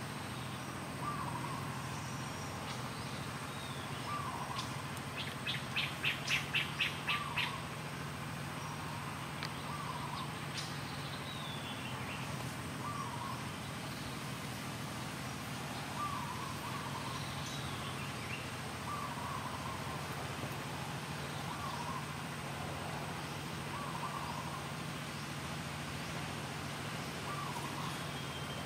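Forest birds calling: a short call repeats about every two seconds, with a louder run of about eight quick high chirps around six seconds in, over a steady low background hum.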